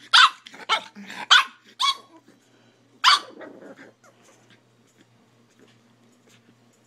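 Pug puppy barking: a quick run of about five short, high-pitched barks in the first two seconds, then one more about three seconds in.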